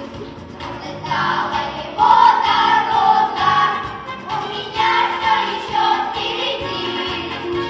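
A children's choir singing, heard from the seats of a theatre hall; the singing grows louder about two seconds in.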